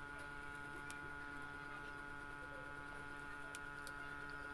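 Steady electrical hum made of several held tones, with a few faint clicks of eating by hand.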